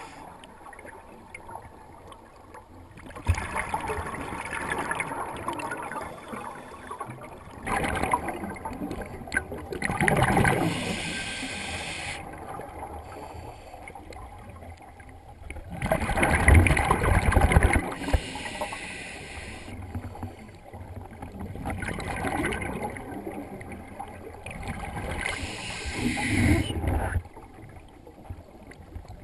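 Scuba regulator breathing heard underwater: a long bubbling rush of exhaled air about every five seconds, with quieter stretches between.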